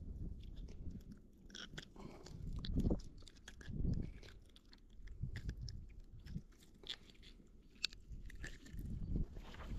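Close, faint handling sounds of fingers threading a soft plastic fishing bait onto a hook: small scattered clicks and rustles, with a few dull low thumps.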